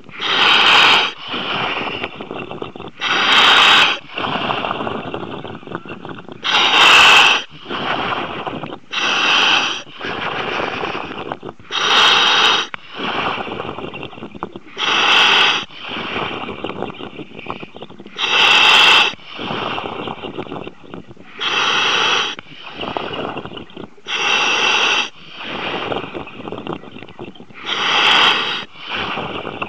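A diver breathing through a demand regulator, heard over the dive communications line: a loud rush of gas about every three seconds, with quieter breathing noise between the rushes.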